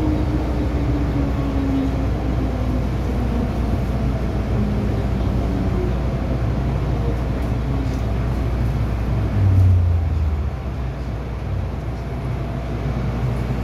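Inside an MTR M-Train electric multiple-unit car running on the rails, its motor whine falling slowly in pitch as the train slows. There is a short low rumble about nine and a half seconds in.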